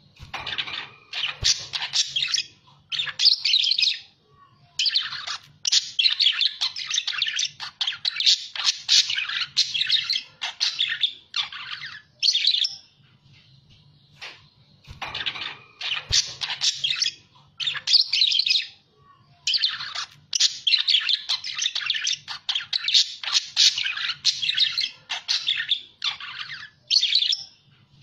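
Budgerigars (Australian parakeets) in full song, chattering and warbling in rapid high chirps and squawks. The chatter comes in two long stretches with a short pause between them, the second much like the first.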